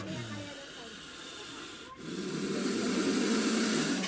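Cobra hissing, its hood spread. The hiss eases off after the first half second and swells louder again from about two seconds in.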